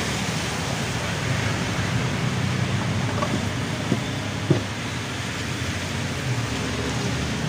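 Steady rushing background noise with a low hum, and two sharp metallic clinks about four and four-and-a-half seconds in as the aluminium lid is set on the bakso broth pot.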